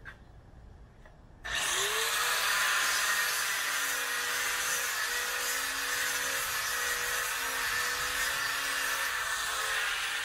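Handheld router starting up about a second and a half in, its motor whine climbing and then holding steady as it cuts a roundover along the shed's wooden roof edges.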